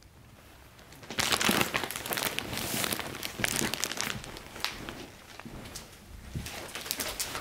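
Plastic packaging crinkling and rustling as it is handled: dense, irregular crackles starting about a second in and going on.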